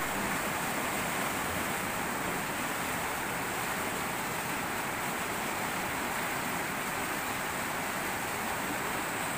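Steady rush of fast river water churning through a concrete weir.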